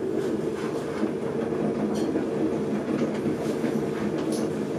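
A carving tool scraping excess clay from the base of a freshly thrown cylinder on a spinning potter's wheel: a steady, rough, rattling scrape.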